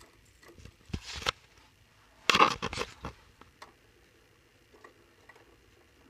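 Handling noise: a short rustling scrape about a second in, a louder cluster of rustling scrapes and clicks a little past the middle, then scattered light clicks.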